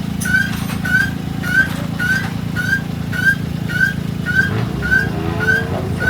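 A vehicle engine running steadily at idle, with a short rising chirp repeating evenly about twice a second over it.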